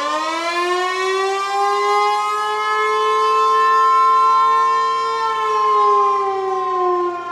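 Federal Signal 508 outdoor tornado warning siren winding up, its pitch rising over the first couple of seconds, holding a steady wail, then starting to fall about five seconds in. A steady high NOAA Weather Radio alert tone sounds over the siren throughout.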